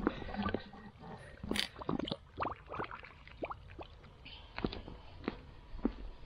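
Water gurgling and bubbling irregularly out of the end of a flexible sprinkler hose into a muddy trench, as the new sprinkler line is flushed with garden-hose water to clear out dirt and debris.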